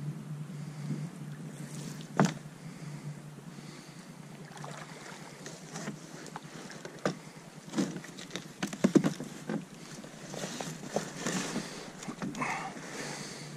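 Paddle strokes from an Ascend H12 hunting kayak: the paddle splashes in the water, with a few sharp knocks against the boat, the loudest about nine seconds in.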